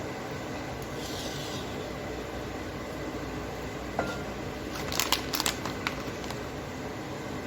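Kitchen handling noises over a steady low room hum: a single knock about four seconds in, then a quick run of sharp clicks and crackles around five seconds in.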